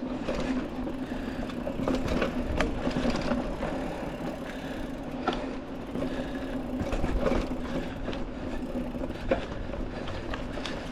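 Mountain bike on tubeless tires rolling along a dirt trail: a steady rolling hum with rumble, scattered rattles and short knocks from the bike and the ground.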